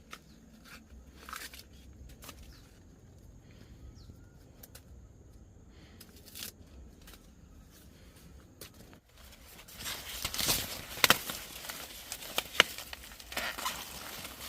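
Rustling and crackling handling noise, faint at first and growing louder about ten seconds in, with a few sharp snaps.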